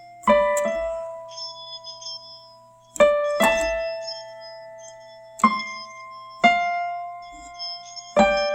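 Slow, sparse piano music: single notes and chords struck every second or two and left to ring and fade.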